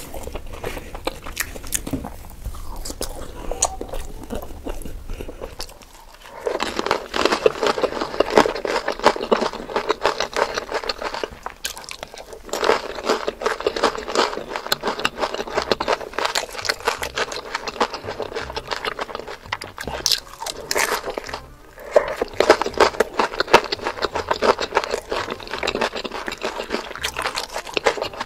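Close-miked eating sounds: for the first six seconds, softer chewing over a low hum. Then dense, crisp crunching and biting of crunchy food, in three long spells with short pauses between.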